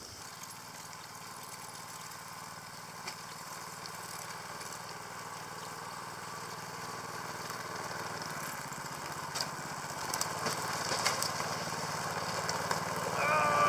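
Small engine of a motorized snow tow running steadily as it drives along a deep-snow trail, growing louder as it comes closer.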